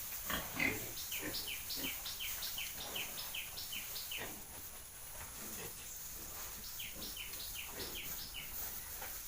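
A bird calling a rapid run of short, falling chirps, about three a second, which stops after a few seconds and starts again for a shorter run near the end.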